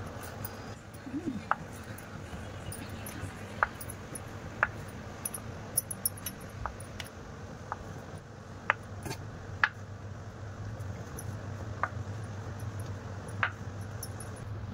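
Kitchen knife cutting a block of paneer into cubes, the blade tapping down on a wooden cutting board about ten times at irregular intervals. A steady low hum runs underneath.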